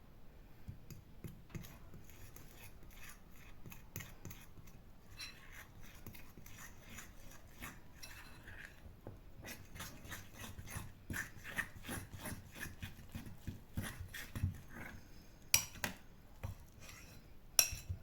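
A utensil stirring pancake batter in a bowl after flour has been added, with repeated scraping and clinking against the bowl, and a couple of sharper clinks near the end.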